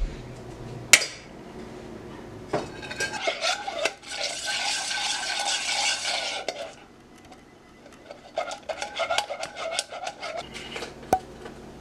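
A utensil stirring and scraping inside a saucepan, with repeated clinks against the pot. There are two bouts of quick strokes, separated by a short pause.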